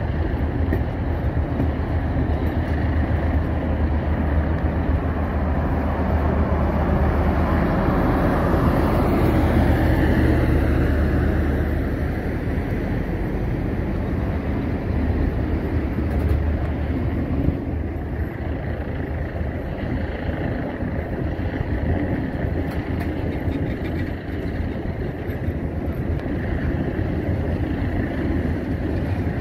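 Union Pacific passenger cars of a train rolling past on the rails: a steady rumble of wheels and running gear. It swells around ten seconds in, then eases slightly.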